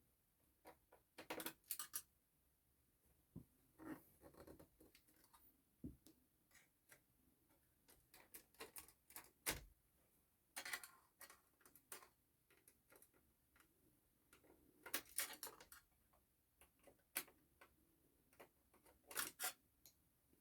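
Faint, scattered clicks and short scrapes of a screwdriver working on metal screws and parts, as the hard drive is unscrewed from inside a set-top box.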